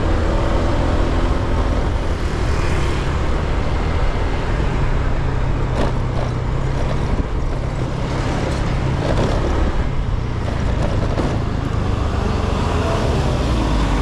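Motor scooter being ridden along a road, its engine running steadily under continuous road noise.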